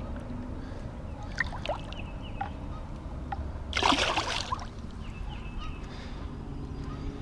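Pond water sloshing, with a short splash about four seconds in, under a steady low wind rumble on the microphone.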